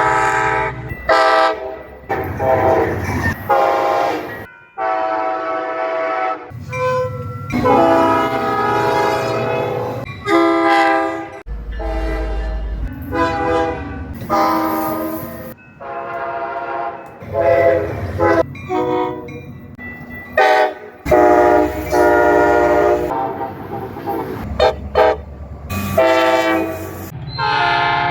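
Locomotive air horns in a rapid succession of roughly one-second snippets, each a different multi-tone chord, cut abruptly into the next. Some snippets carry a low engine rumble beneath the horn.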